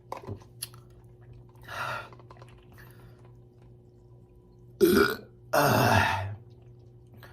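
A man burping several times: small burps early on, then a loud short burp about five seconds in, followed at once by a longer, louder one.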